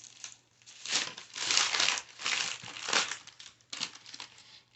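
Paper crinkling and rustling in irregular bursts as sticky biscotti dough is squished together by hand on it.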